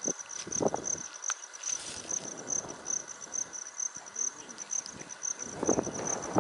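Insects chirping in a steady, rapid high-pitched pulse, with faint low rustling. A louder low rushing noise builds near the end.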